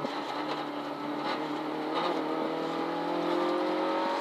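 In-car sound of a Citroën Saxo N2 rally car's four-cylinder engine pulling hard at full throttle. There is a brief break about two seconds in, then the revs climb steadily.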